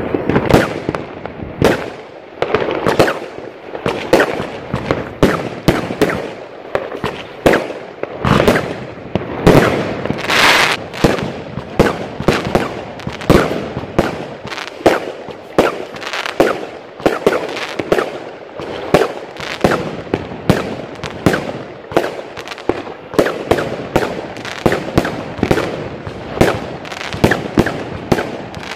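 Aerial fireworks going off one after another, sharp bangs at about one to two a second throughout.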